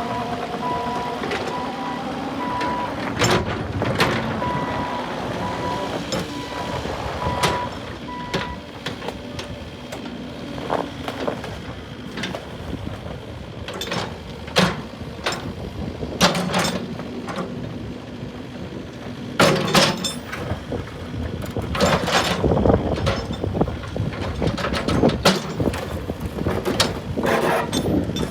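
Cat 308E2CR hydraulic mini excavator running, its Cat diesel engine humming steadily while the machine works, with repeated metallic clanks and knocks throughout. A single-pitch beeping alarm pulses for about the first eight seconds.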